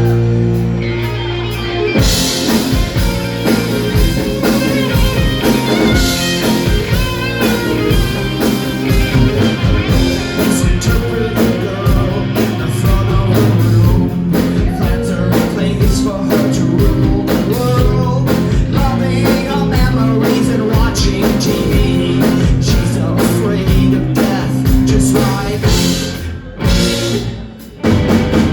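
Rock band playing live with singing: a held chord, then the full band comes in about two seconds in and plays on at a steady, loud level.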